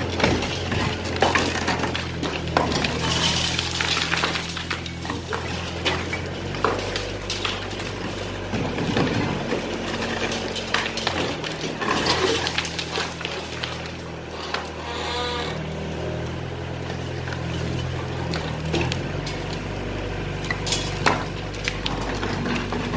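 Excavator's diesel engine running steadily under load, with repeated crunches, cracks and clinks of concrete, brick and debris breaking as the house is torn down.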